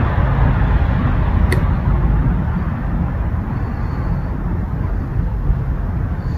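Steady low rumbling background noise with no clear pitch, with a single sharp click about one and a half seconds in.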